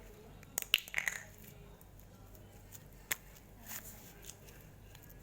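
Slime being squeezed and worked by hand, giving sharp little pops and clicks: a quick cluster about a second in, then single pops near three and four seconds.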